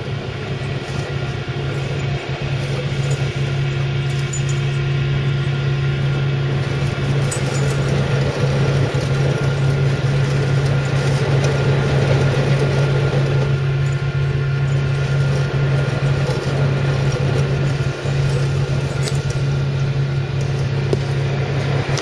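A vehicle engine running steadily, heard from inside the cab while driving over stubble, with a constant low drone that slowly grows louder over the first half.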